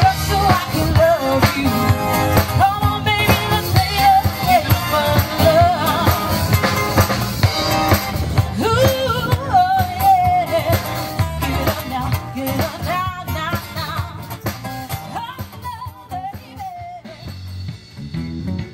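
Live band playing a song: a lead singer over a drum kit and guitars. The music gets quieter near the end.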